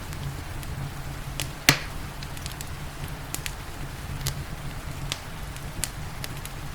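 Wood fire crackling in a fireplace: scattered sharp snaps and pops, with one loud pop about 1.7 s in, over a steady low rumble and the soft hiss of rain.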